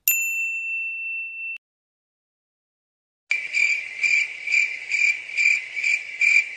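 A single high, steady ding that holds for about a second and a half and cuts off, then a pause, then crickets chirping about three times a second: the stock cricket sound effect used as a comic cue for awkward silence.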